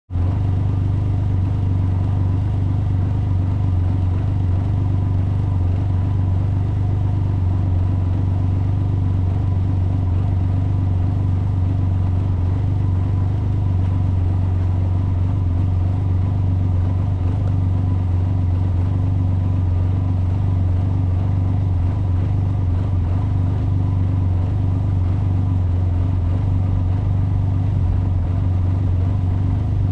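Can-Am Ryker three-wheeler on the move at a steady speed: a constant low drone of engine and road, with wind noise on the microphone.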